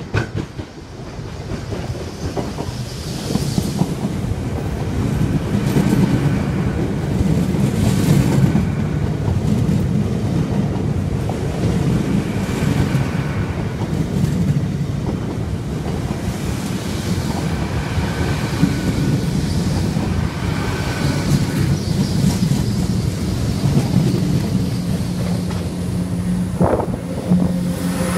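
LNER Azuma (Hitachi Class 800-series) passenger train running past close by, growing louder over the first few seconds as it nears. Then a steady rumble of wheels on rails with repeated clatter as the coaches go by.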